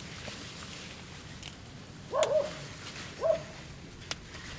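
Two short animal calls, about a second apart, over a faint steady outdoor background, with a sharp click near the end.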